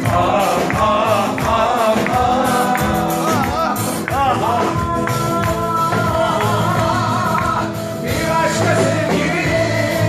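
Live band music playing loud, with a singing voice wavering over held accompaniment and a regular percussion beat.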